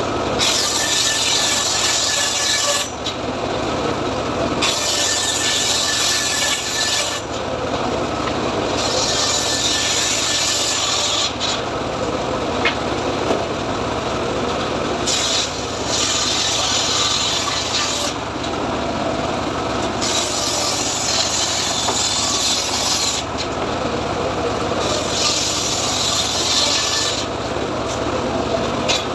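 Homemade circular table saw ripping teak slabs into boards: the blade bites through the wood in about seven passes of two to three seconds each, with the saw running free in the short gaps between cuts.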